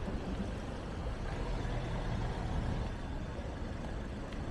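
Road traffic passing close by: a steady low rumble, with an engine hum swelling for a second or two in the middle.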